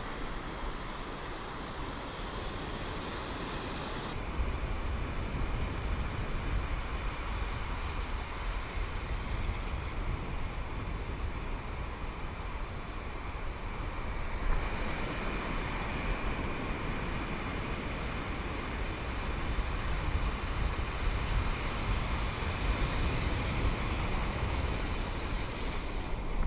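Ocean surf washing and foaming, with wind rumbling on the microphone.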